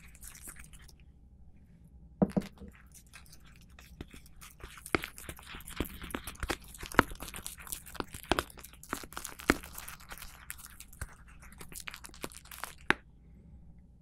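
A small clear plastic container handled right at the microphone: a dense run of crackles, crinkles and sharp clicks as the plastic is flexed, squeezed and scratched. It starts about two seconds in and stops shortly before the end.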